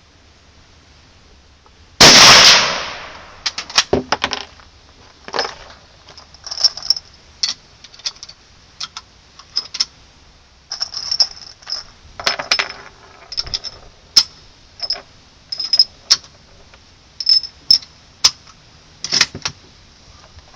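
One loud rifle shot from a Gewehr 98 bolt-action Mauser about two seconds in, ringing out for about a second. A long irregular run of sharp metallic clicks and clacks follows: the bolt being worked and cartridges handled.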